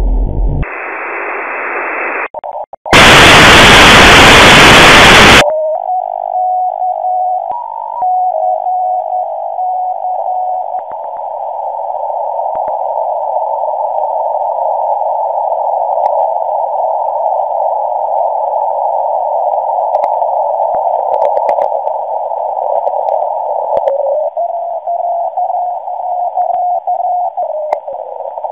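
Shortwave receiver audio from an online WebSDR in CW mode: steady hiss of band noise while the receiver is retuned. About three seconds in, a loud burst of wide static lasts a couple of seconds. After that the hiss narrows, with a broken beeping tone shortly after and a steadier tone near the end as the tuning passes over signals.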